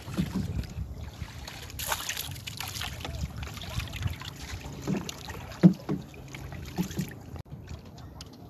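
A small boat rocking on the sea: low wind and water noise, with a few light knocks scattered through.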